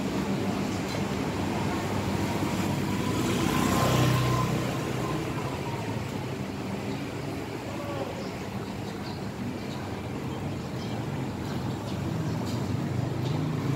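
Motorbike passing close by on a narrow street, swelling to its loudest about four seconds in and then fading, over a steady hum of traffic.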